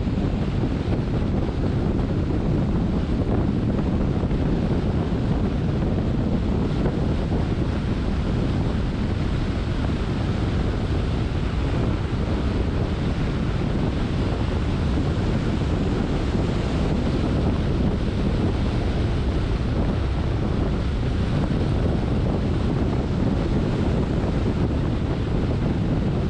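Steady low rumble and rush of a car driving on wet streets: road, tyre and wind noise, with no engine note or other sound standing out.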